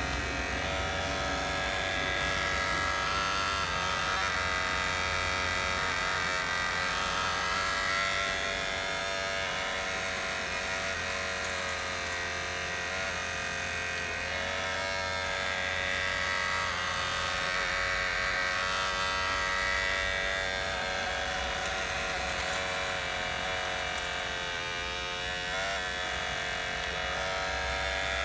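Electric motors of a Huina radio-controlled toy excavator whirring, the whine wavering and shifting in pitch as the boom, arm and bucket dig and the upper body swings.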